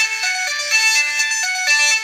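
Samsung phone alarm tone: a short electronic melody of bright, quick notes repeating over and over.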